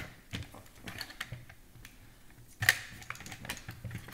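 Light clicks and taps of the iRobot Braava 380T robot mop's plastic housing being handled and stood on end with a screwdriver in hand, with one louder knock about two-thirds of the way through.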